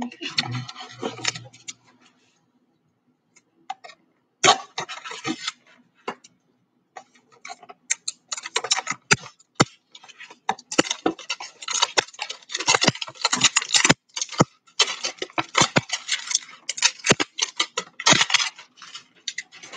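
Clear plastic wrapping on a trading-card retail box crinkling and tearing as it is pulled open by hand, in short spells at first, then almost without a break from about halfway through.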